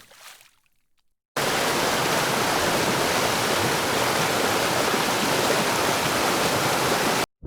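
Steady rush of fast-flowing river water, cutting in abruptly about a second and a half in and cutting off just before the end.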